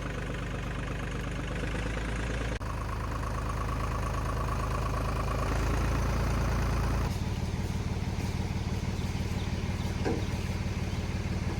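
Tractor engine running steadily while pulling a chained tree loose. Its note changes abruptly about two and a half seconds in and again about seven seconds in.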